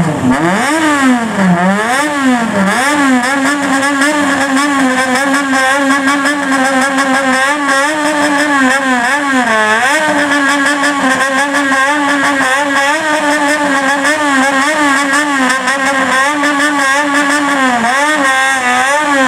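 Modified motorcycle engine being revved by a stationary rider in a 'call': held at high revs while the throttle is rolled quickly up and down in a wavering, rhythmic pattern. There is a deep dip and climb about ten seconds in, and the revs fall away at the end.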